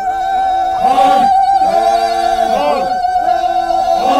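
Unaccompanied group singing of a traditional Naga welcome song: one voice holds a long wavering high note while lower men's voices swell and fall in short phrases about every second and a half.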